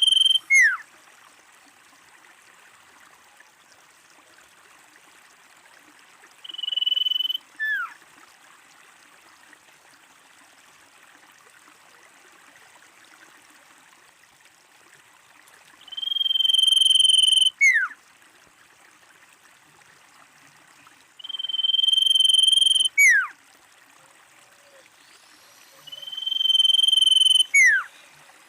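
Common iora whistling its long call: a clear note held on one pitch for about a second and a half, then a quick slur downward. The call comes five times at uneven gaps, over a faint steady hiss.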